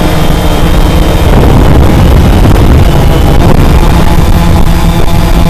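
Cheerson CX-20 quadcopter's brushless motors and propellers whirring loudly in flight, heard close up from its onboard camera with a heavy rumble of prop wash on the microphone. The motor tones shift in pitch about a second in.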